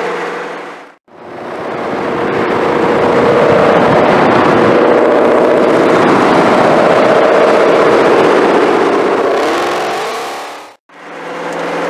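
2020 Ford Shelby GT500's supercharged 5.2-litre V8 exhaust, the car driving at steady revs, fading in about a second in and fading out about a second before the end. In the first second the previous engine sound fades out.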